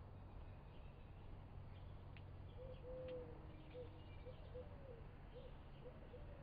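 Faint low cooing calls of a bird, a string of short hooting notes beginning about two and a half seconds in, one of them longer than the rest. Faint high chirps of small birds and a low steady hum lie underneath.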